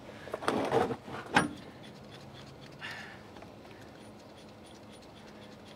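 Hand-fitting of the washer and nut onto a differential pinion yoke: a short rattle of metal clinks and knocks, a sharp click about a second and a half in and a softer knock around three seconds, then only faint room noise.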